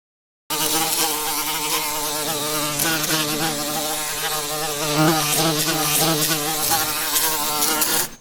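Loud insect buzzing, like a swarm of flies or mosquitoes, wavering in pitch; it starts abruptly about half a second in and cuts off suddenly near the end.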